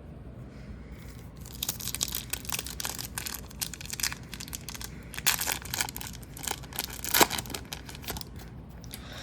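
A hockey card pack's foil wrapper being torn open and crinkled by hand, a quick run of sharp crackles.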